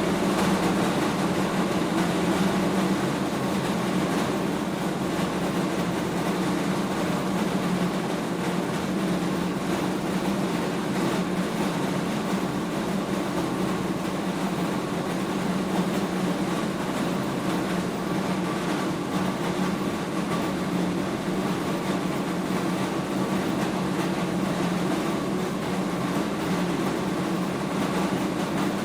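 Animal feed mill machinery running steadily: a constant hum with several steady tones over a rushing noise, with no change or break.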